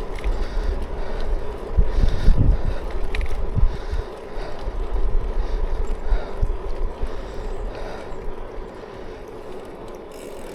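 Wind buffeting the microphone while riding along, a low rumble that swells loudest about two seconds in, with a faint steady hum underneath.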